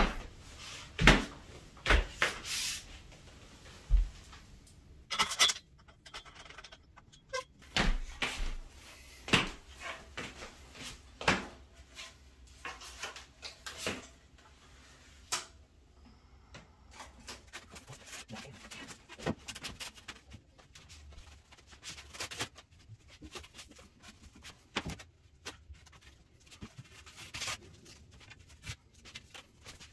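Objects being handled and set down in a small room: irregular knocks, clicks and rubbing, with several sharp knocks in the first dozen seconds and lighter, quicker handling sounds after that.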